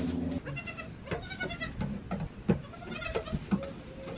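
Nigerian Dwarf goat kids bleating, several short high-pitched cries, with a few sharp knocks of small hooves on a wooden box.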